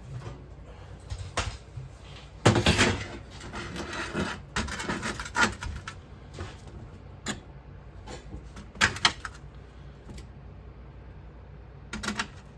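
Scattered knocks and clatter of equipment being handled while getting ready to pour molten silver, with a busier stretch about two and a half seconds in and single knocks later. A faint steady low hum runs underneath.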